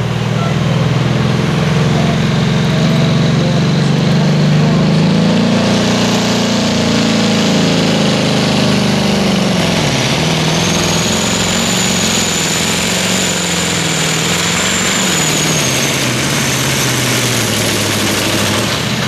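Modified pulling tractor's engine running flat out under load during a pull. Its pitch rises, dips briefly about halfway and then sinks slowly toward the end, with a high whine over it for several seconds in the second half.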